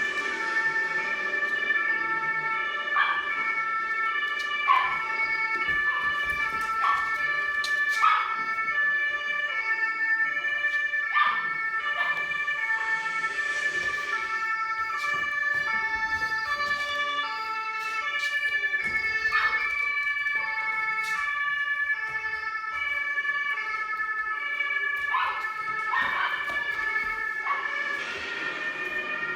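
Recorded emergency-vehicle siren played back over a speaker, a steady multi-tone wail with pitches switching in steps, with short sharp sounds cutting in every few seconds.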